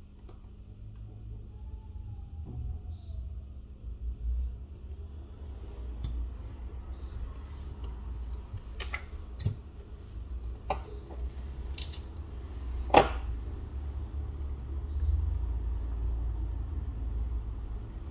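Small tools and phone parts clicking and tapping during hands-on repair work on a smartphone, with a handful of sharp clicks, the loudest about two-thirds of the way through, over a steady low hum. A short high beep repeats about every four seconds.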